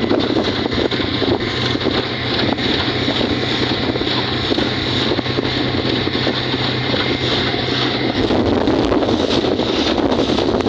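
Suzuki 60 hp outboard motor running with the boat under way, mixed with wind buffeting the microphone and water rushing past the hull. A steady low engine note holds, then shifts about eight seconds in.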